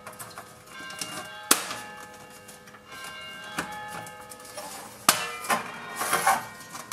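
Hand-cranked stainless-steel food mill turning, with occasional sharp metallic clicks and scrapes as it presses red currant pulp through the disc to hold back the seeds. Background music with sustained notes plays under it.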